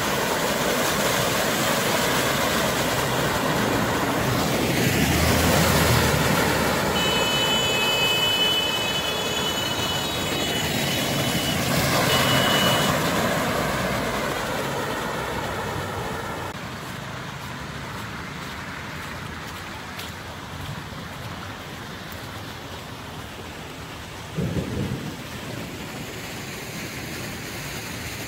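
Vehicles driving slowly through deep floodwater on a road, tyres churning and throwing a wash of water, with engines running. The wash swells twice as vehicles pass close, then settles after about sixteen seconds into a steadier, quieter rush of water. There is a thin high tone for a few seconds about a third of the way in, and a brief thump near the end.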